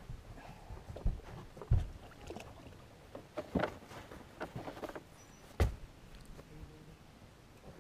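Irregular knocks and thumps on a boat's deck and hull as someone kneels at the bow, with light sloshing of water as a bass is held in the lake and let go; the sharpest knocks come about a second in, just under two seconds in and just over five seconds in.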